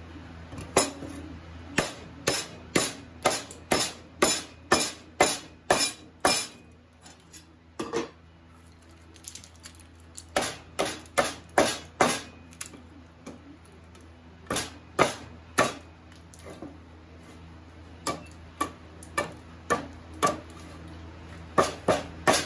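Hammer striking a chisel driven into a block of cedar: sharp metallic taps about two a second, in several runs with short pauses, chipping and splitting off the brittle wood.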